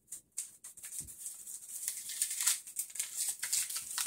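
Packaging being handled: a mailer and its paper wrapping rustling and crinkling, with loose pieces of a broken glass rattling inside. It starts as a few short sharp clicks and turns into steady rustling about a second in.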